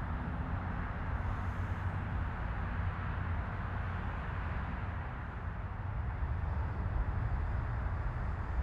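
Boeing 737 twin jet engines running at taxi power: a steady low rumble with a hiss above it, swelling slightly near the end as the aircraft passes.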